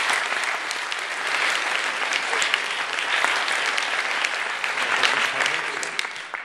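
Audience applauding: a dense patter of many hands clapping, dying away near the end.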